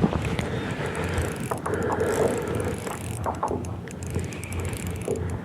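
Spinning fishing reel being wound, its gears and handle rattling as a hooked fish is played in.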